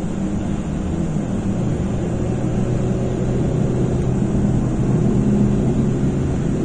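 Road and engine noise inside a Mazda's cabin at motorway speed. A low steady engine drone sets in about a second and a half in and holds.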